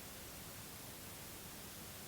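Faint steady hiss of background noise and room tone, with no ringtone playing.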